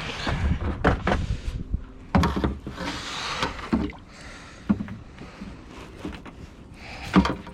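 Irregular knocks, thumps and scraping against a kayak hull as a freshly caught pike is handled aboard.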